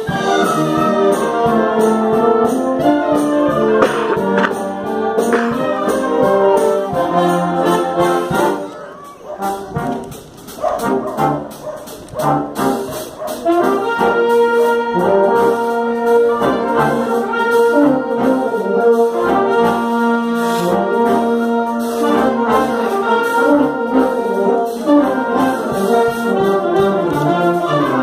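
Concert band of flutes, clarinets, saxophones, trumpets, trombones, euphoniums and tubas playing live. The band drops to a quiet passage about nine seconds in, then comes back full with long held chords.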